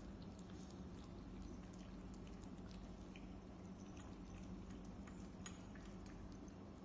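Faint, scattered wet mouth clicks and smacks from a cat, over a steady low hum.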